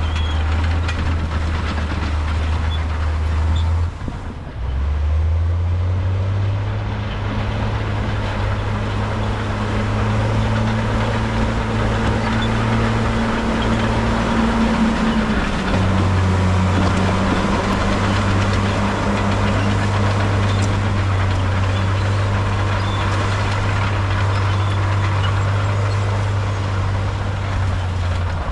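Heavy diesel engines of earthmoving machinery running steadily, the low engine note shifting in pitch about four seconds in and again about halfway through as the load changes.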